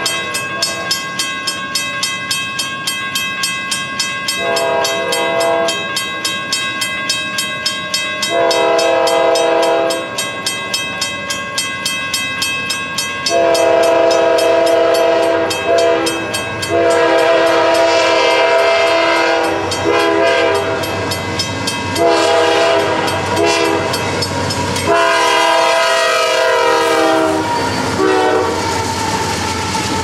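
A railroad grade-crossing bell rings fast and steadily while an approaching freight locomotive's air horn sounds a series of chord blasts. The blasts grow longer and louder as the train nears. Rumble from the locomotives builds near the end as they reach the crossing.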